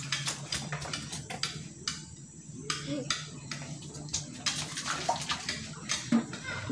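Water splashing and sloshing with irregular clicks and knocks, over a low steady hum.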